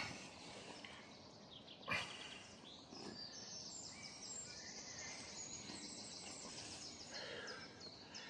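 A small bird singing faintly: a high, rapid song of repeated short notes lasting about four to five seconds. A single thump comes about two seconds in.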